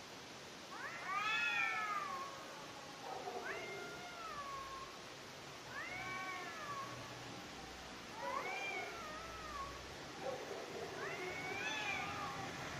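Cats caterwauling: about five long, drawn-out yowls, each rising and then falling in pitch, a couple of seconds apart. This is the courting call of cats in the mating season.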